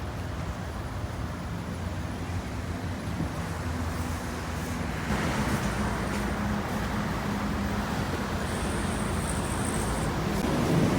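Steady motor-vehicle running noise: a low engine hum over road and traffic noise. It grows somewhat louder about five seconds in.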